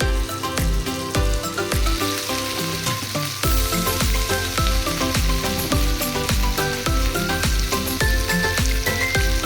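Marinated chicken sizzling as it fries in oil on a tawa, over background music with a steady beat.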